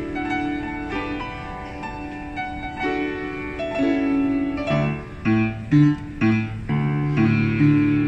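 Upright piano played solo: a slow melody over held notes, then bass chords come in about five seconds in, three of them struck hard in quick succession before the playing settles into fuller sustained chords.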